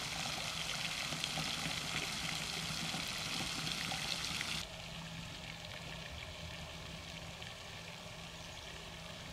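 Steady hiss of outdoor noise, like running water or wind, that drops abruptly and turns duller about four and a half seconds in.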